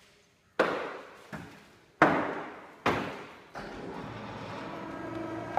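Four loud knocks and bangs during the loading of heavy aluminium coils onto a pickup's bed, each dying away with echo, the second and fourth loudest. From about three and a half seconds a steady mechanical hum with a low drone takes over.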